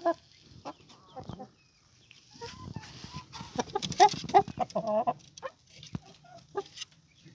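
Hens clucking, a run of short clucks coming thick and loud about halfway through, with a few knocks in between.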